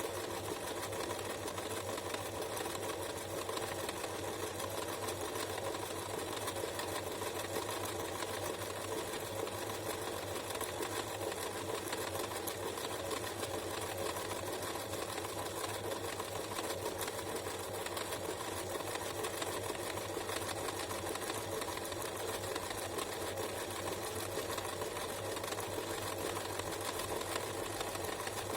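Domestic sewing machine running steadily without a pause, sewing an overcast stitch along a raw fabric edge with its standard presser foot.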